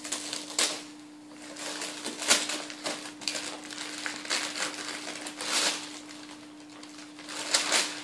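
Christmas wrapping paper being torn and crumpled by hand, in a series of short rips and rustles spread over several seconds, over a faint steady hum.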